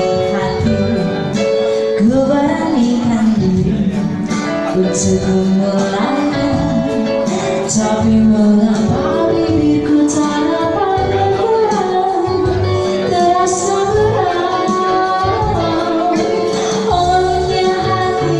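Music: a song with a woman singing a melody over instruments and light percussion.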